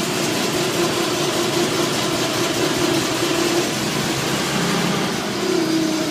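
1943 Dodge WC-52 weapons carrier's flathead inline-six engine idling. Its note wavers about four seconds in, then steadies again.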